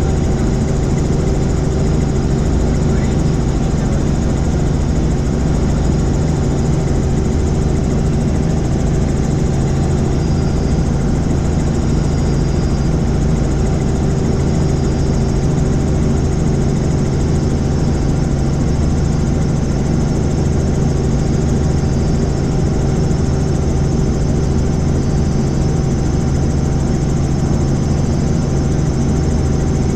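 Helicopter engine and rotors running steadily in flight, a constant loud drone with steady tones that does not change in level.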